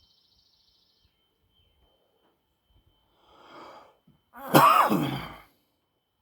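A man breathes out softly, then gives one loud cough about four and a half seconds in, the voice in it dropping in pitch.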